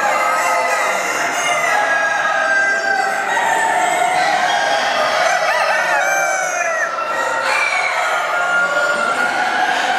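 Many chickens calling over one another: roosters crowing and hens clucking in a dense, continuous chorus of overlapping calls.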